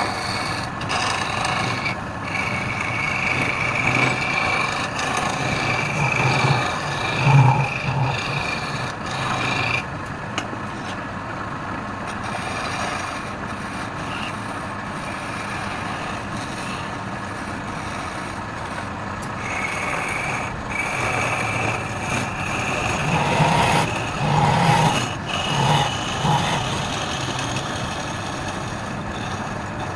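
Wood lathe running steadily, with a high whine that comes and goes and louder surges as a tool bites into the spinning wood.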